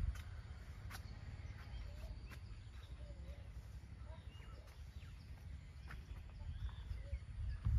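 Faint, scattered bird chirps over a steady low rumble, with a few light ticks.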